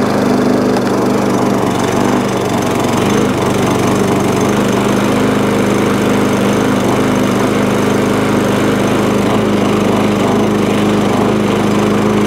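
MTD push mower's 4 hp Tecumseh engine running steadily, sounding like an absolute bag of nails, with its covers loose.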